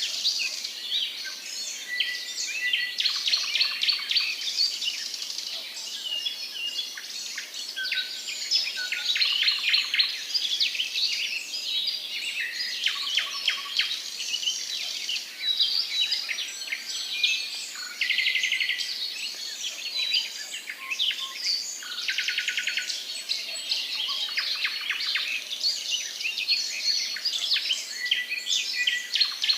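Several songbirds singing and chirping at once, a dense chorus of overlapping short high notes and quick trills, with a couple of fast rattling trills near the middle.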